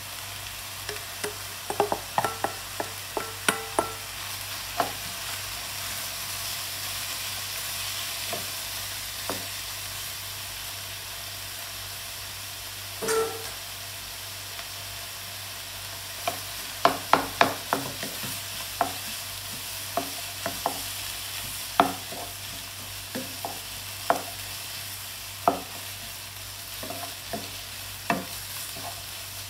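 Shredded pork ham, onions and sausage sizzling in a frying pan, with a wooden spatula knocking and scraping against the pan as the food is stirred. The knocks come in quick clusters, with pauses between them, over a steady hiss of frying.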